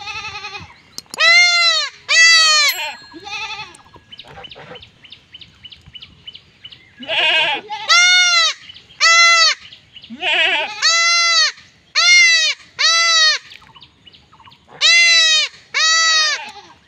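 A young goat kid bleating in distress while it is held down and castrated: short high-pitched bleats, each rising and falling in pitch, in quick runs of two to five, with a pause of a few seconds about four seconds in.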